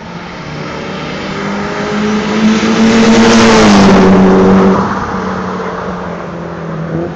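A car at track speed passing close by: its engine note climbs and grows louder as it approaches, peaks about three to four seconds in, then drops in pitch as it goes past and fades away.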